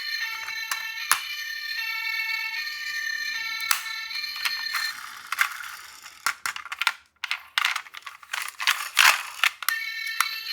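Toy ambulance's electronic siren sounding in high-pitched tones that step between pitches, with scattered clicks; about five seconds in it cuts out, giving way to irregular plastic clattering and rattling.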